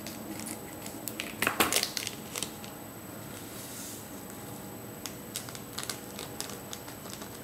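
Scissors snipping open a small foil candy-kit sachet with a crackly burst about one and a half seconds in, then the sachet crinkling and a soft hiss of powder as it is emptied into a plastic tray, with scattered small clicks and taps.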